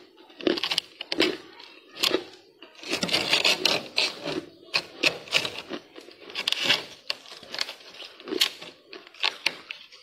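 Thick freezer frost being scraped: an uneven run of crunchy scraping strokes, most short and sharp, a couple drawn out for about a second.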